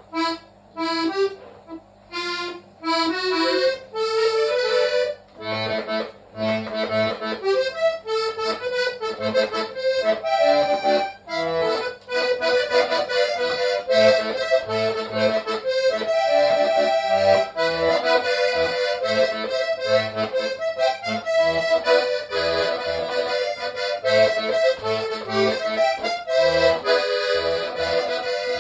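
Hohner Trichord three-row diatonic button accordion played solo. Short runs and chords with pauses come first, then a continuous vallenato-style melody over a rhythmic bass and chord accompaniment from about six seconds in.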